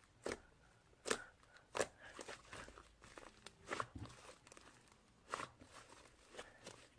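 Fluffy slime being squished and poked by hand, giving a handful of short, sharp pops and crackles at uneven intervals with faint sticky crinkling between them.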